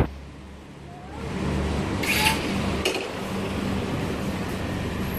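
A steady low mechanical hum over a background of noise, quieter for the first second and then louder. About two seconds in there is a brief hiss, with a few faint clicks.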